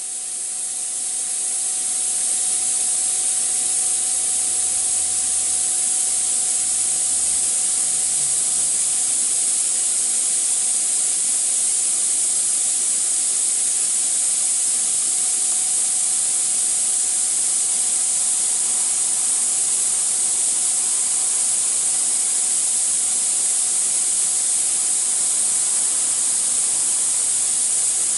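DN-602 vertical cylindrical grinding machine running: a steady high hiss with a faint steady hum beneath it, building up over the first two seconds and then holding constant.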